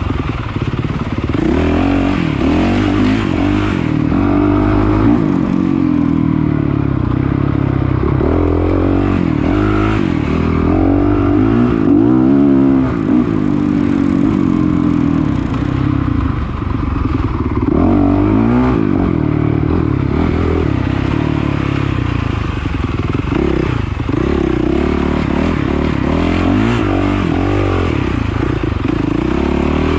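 Dirt bike engine being ridden hard off-road, revving up and falling back again and again as the throttle opens and closes.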